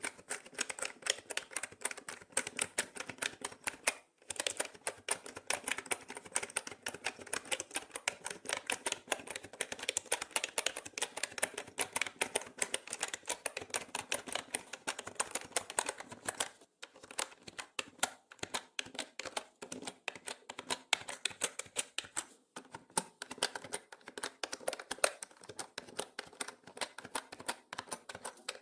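Typing on a mechanical keyboard: a fast, continuous run of key clicks and clacks, with a few brief pauses in the typing.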